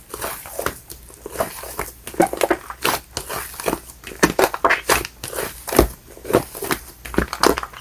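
Fluffy shaving-foam slime being squeezed and pressed by hand, giving an irregular run of small crackles, pops and squishes, several a second.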